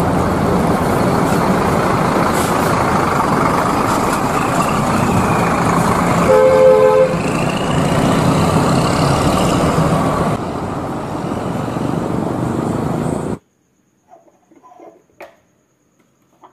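Intercity coach engine and bus-terminal vehicle noise, steady and loud, with a bus horn sounding once for under a second about halfway through. The sound cuts off suddenly near the end, leaving only faint taps and handling noises.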